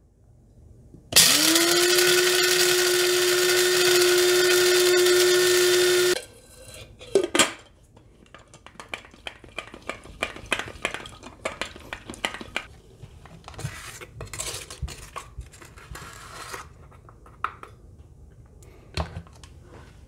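Electric coffee grinder grinding dark-roast coffee beans for about five seconds: the motor whines up to a steady pitch and cuts off suddenly. Scattered clicks and clatter of handling follow.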